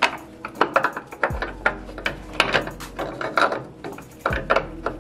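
Irregular metal clinks and knocks of tools and suspension linkage parts being handled, as the rear shock linkage of a BMW S1000RR is worked on by hand to free the bottom link bolt.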